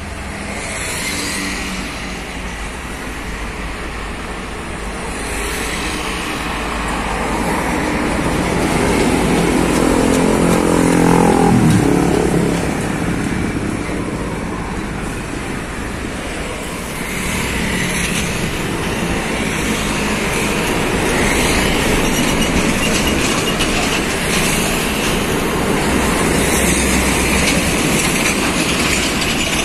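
Heavy trucks' diesel engines running in slow traffic. One engine grows louder and climbs in pitch to a peak about twelve seconds in, then drops away.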